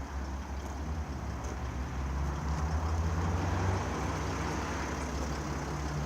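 A motor vehicle engine running steadily, getting a little louder for a couple of seconds midway.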